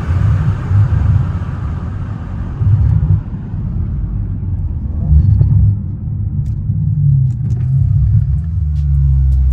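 High-powered car running with a deep, uneven rumble that surges several times, while a high rushing noise fades away over the first few seconds.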